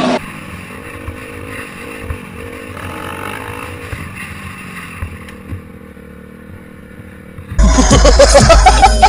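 A dirt bike engine runs steadily along a trail, its note wavering a little. About a second and a half before the end it cuts abruptly to loud music with voices.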